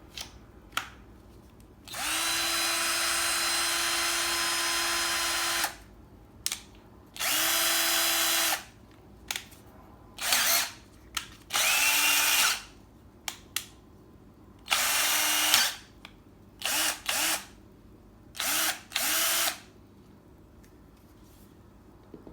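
A drill-driver's motor runs in repeated trigger pulls: first one steady run of nearly four seconds, then a shorter run and several brief bursts. Each run spins up quickly to a steady speed and stops sharply, with small clicks between runs.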